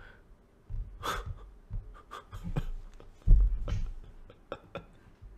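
Scattered soft breaths, clicks and low thumps close to a microphone. The loudest thump comes about three seconds in.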